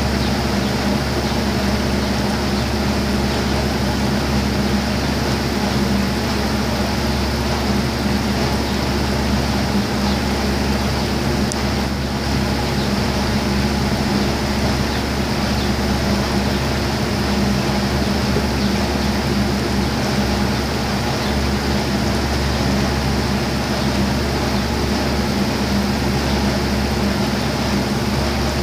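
Steady mechanical hum over an even rushing noise.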